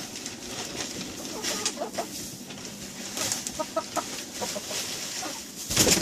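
Chickens clucking in short scattered calls, with a loud rustling burst near the end.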